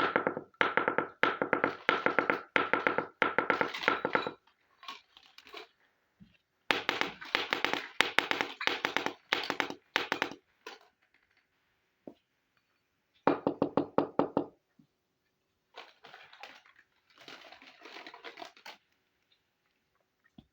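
Rapid tapping and clicking of small miniature-kitchen toy pieces and utensils with a slight ringing tone, in several quick runs a few seconds long with short pauses between.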